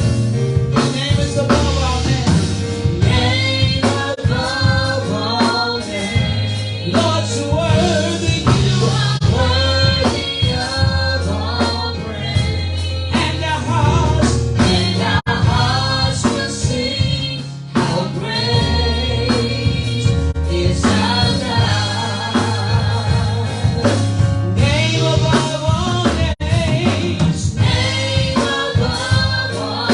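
Gospel worship music: singers with a band, a steady bass line and drum beat under the voices.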